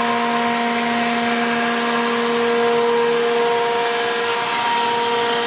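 Thompson 660 hydraulic surface grinder running: a steady machine hum with a few held tones, whose pitch shifts slightly near the end.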